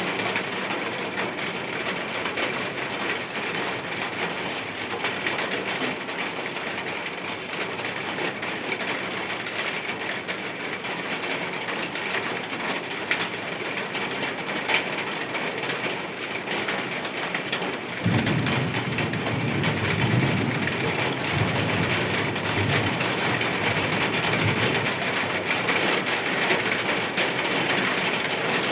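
Steady rain falling. About two-thirds of the way through, a low rumble of thunder comes in suddenly and rolls on in swells to the end.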